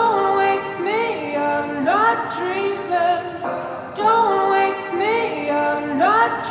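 Background pop music with a female voice singing short rising phrases over a steady accompaniment.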